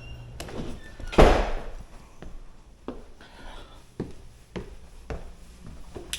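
A single heavy thunk about a second in, followed by a string of lighter knocks about half a second to a second apart.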